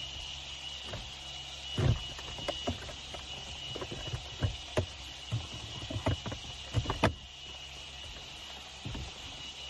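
Plastic glove box of a Mercedes C-Class W204 being worked back into its place in the dashboard: irregular knocks and clicks of plastic against plastic, the loudest a little under two seconds in and a cluster of them toward the middle.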